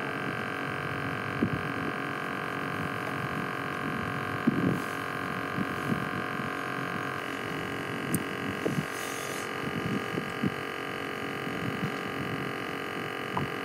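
A steady droning hum of several held tones, which shifts slightly about halfway through, with a few faint clicks and knocks.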